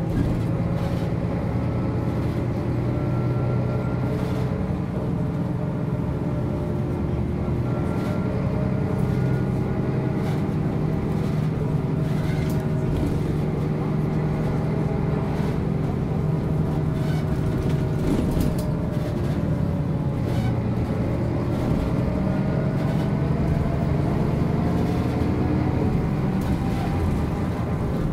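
1999 MAN NG 262 articulated city bus running under way, its diesel engine and drivetrain a steady drone whose pitch rises and falls slowly with the driving.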